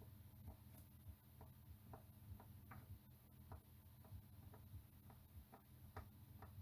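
Faint light ticks, about two a second and slightly uneven, from a metal tool tip pressing along the freshly soldered pins of a QFP surface-mount chip to check that each joint is solid.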